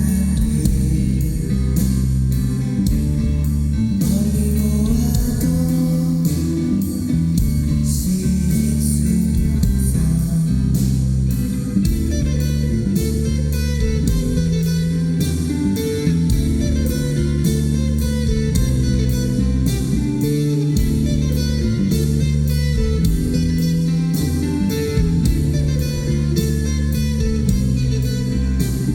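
Live band playing an instrumental passage: guitar over bass and a drum kit keeping a steady beat on the cymbals.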